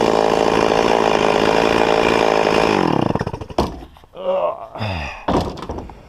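Stihl 036 two-stroke chainsaw running steadily at full throttle on an Alaska sawmill. About three seconds in the throttle is released and the engine note drops away, followed by a few sharp knocks and short falling tones as the saw winds down.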